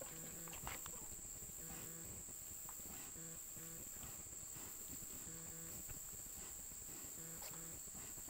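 American Guinea Hog sow grunting while farrowing: short, low grunts about every second or two, often in pairs, over a steady high drone of crickets.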